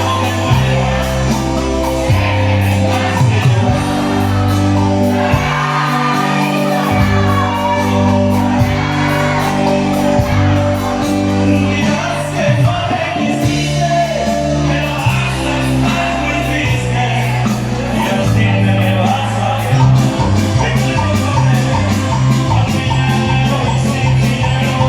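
Live cumbia band playing with singing over a steady bass line, and shouts and whoops from the crowd.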